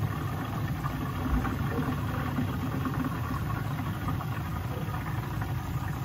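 Steady low rumble of water being pushed through a hot-water boiler's heating loop by the fast-fill valve while the system is purged of air.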